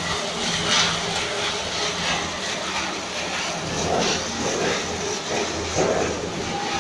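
Snack flavoring machine's rotating stainless-steel drum running, with a steady motor hum and the continuous rustling hiss of fried snack pieces tumbling inside.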